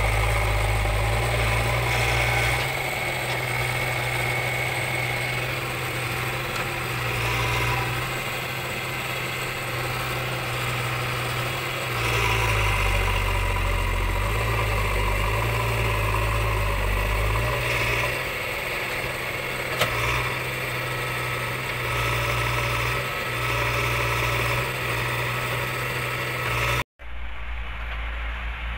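JCB 3DX backhoe loader's diesel engine running as the machine climbs and pushes over a soil pile, the engine note rising and falling with the load. There is one sharp knock about twenty seconds in, and a brief dropout near the end, after which the engine sounds thinner.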